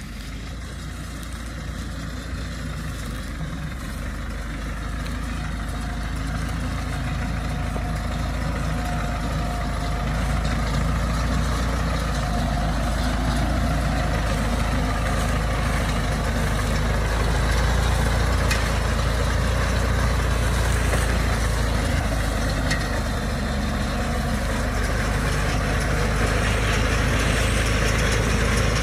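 Ford farm tractor's diesel engine running steadily as it pulls a working Runshine round baler through straw, growing louder as it comes closer.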